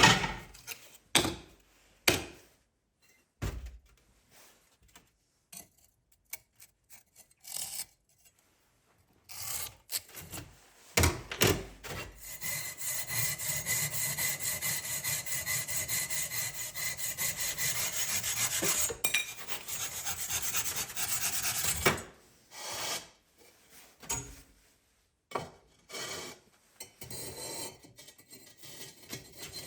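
Hand work on material: scattered light knocks and handling, then about ten seconds of steady, rapid rubbing strokes, which stop suddenly near the middle of the stretch.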